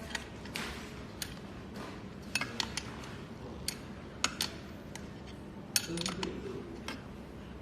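Small metal parts and tools clinking and clicking irregularly, about a dozen sharp knocks spread through, as parts are handled during a scooter repair.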